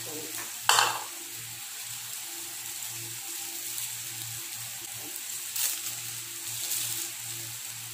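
Pork belly and shrimp sizzling steadily on a grill pan over a portable gas stove, with one sharp pop about a second in. Light crinkling of a crab stick's plastic wrapper being peeled comes later on.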